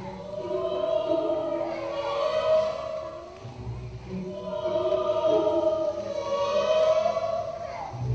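Choral music: voices singing long held notes that swell, fade about three and a half seconds in, then swell again.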